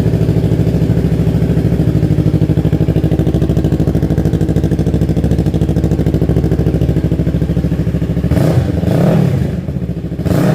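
2023 Yamaha R3's parallel-twin engine idling steadily through an M4 Street Slayer exhaust with the baffle installed, then revved up and back down once near the end.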